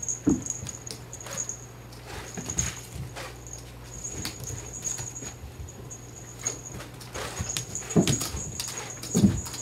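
Cats' paws thumping and pattering on a carpeted floor as they leap and land, a scatter of soft knocks with two heavier landing thuds near the end.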